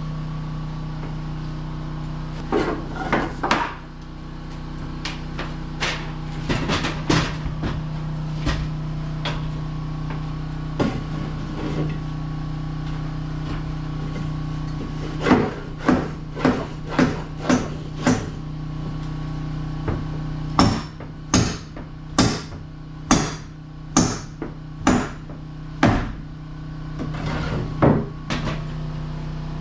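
Hammer blows on wood, driving a tight-fitting framed wall section into place: a few scattered strikes, then a quick run of about six blows, then a steadier run of about seven evenly spaced blows.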